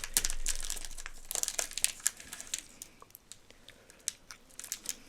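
Plastic snack wrapper crinkling and crackling as it is handled and opened, busy for the first couple of seconds, then only a few scattered crackles.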